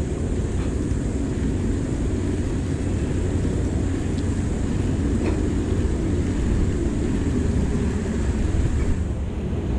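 Steady low rumble of wind and road noise from a mountain bike rolling slowly on asphalt, picked up by a handlebar-mounted action camera, with a few faint ticks.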